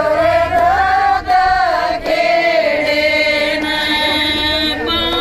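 Women singing together in long, wavering held notes.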